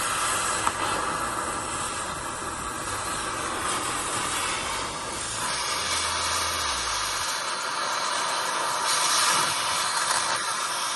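Oxy-fuel cutting torch hissing steadily as it cuts a seized steel bushing in half so it will shrink and come out. The hiss swells louder for a moment about nine seconds in.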